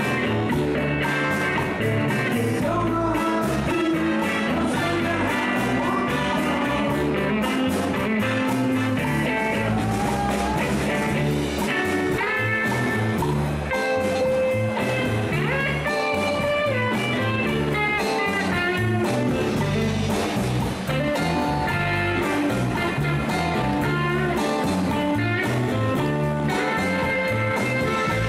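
Live band playing a blues-rock number: electric guitars, bass and drums keeping a steady beat, with some singing.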